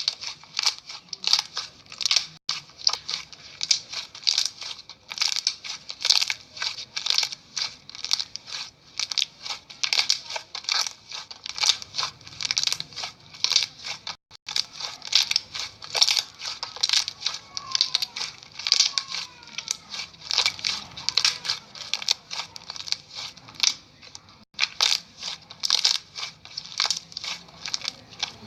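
Slime being squeezed and pressed by hand, giving rapid crunchy clicks and pops, several a second, with a couple of brief pauses.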